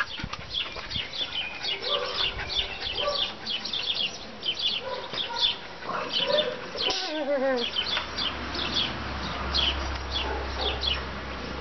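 Small birds chirping, many short high chirps in quick succession throughout, with a brief wavering whine that falls in pitch about seven seconds in.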